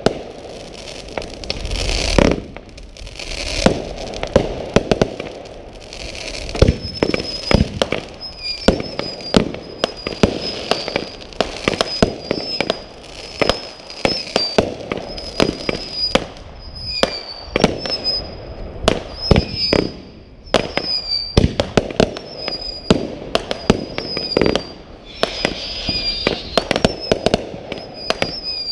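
Fireworks going off in quick succession: repeated launch thumps and bangs with crackling, several overlapping. A high, wavering tone recurs about once a second from about seven seconds in.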